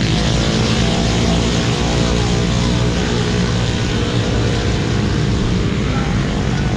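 A tuned 116cc underbone drag motorcycle's engine running steadily, a buzzing engine note with no revving or break.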